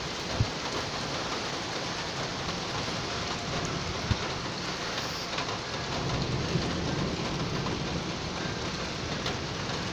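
Heavy rain falling steadily, with a low rumble of thunder building about six seconds in. Two sharp ticks are heard, about half a second and about four seconds in.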